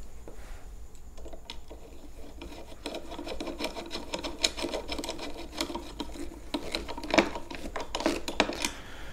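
Hand screwdriver turning screws down into the cover plate of a Gotway Nikola electric unicycle: a fast run of small scraping clicks and a faint squeak from the turning screw. It begins sparsely and grows denser and louder from about three seconds in.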